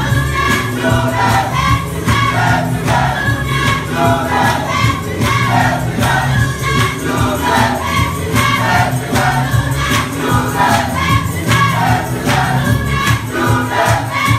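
Gospel choir singing together with instrumental accompaniment and a steady beat.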